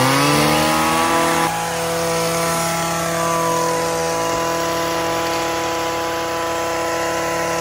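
Stihl brushcutter's two-stroke engine revving up at the start, then running at a steady high speed.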